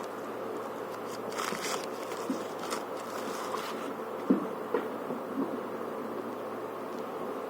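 A steady low buzzing hum with a few brief rustles and soft knocks, the sharpest knock about four seconds in.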